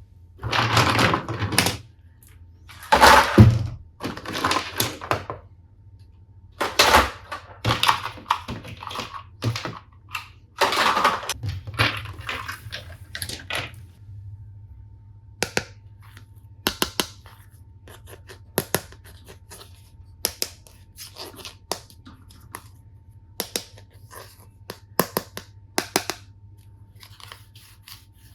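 Hands handling plastic toy tools and packaging. For about the first half there are bursts of rustling and crinkling, then a run of sharp single clicks and taps of plastic against plastic.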